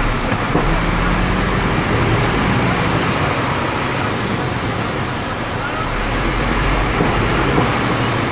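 Scania P310 fire truck's diesel engine running under way, heard inside the cab as a steady low hum with road and cab noise.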